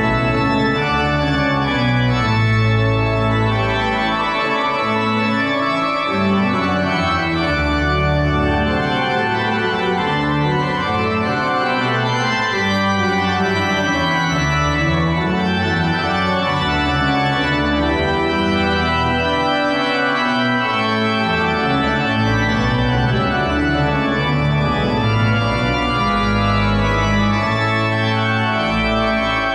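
A Casavant pipe organ playing a full, loud texture of sustained chords, with pedal bass notes shifting underneath every second or two.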